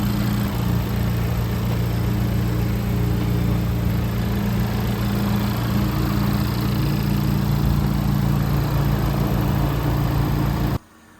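2021 Honda Civic Type R's 2.0-litre turbocharged four-cylinder engine idling steadily after being reinstalled, running smoothly with no problem. The sound cuts off abruptly just before the end.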